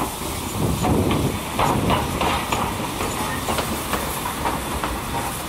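DT650-class steam locomotive DT668 rolling slowly past at close range, its wheels clacking over rail joints in an uneven string of knocks over a rumble, loudest about a second in, with steam hissing.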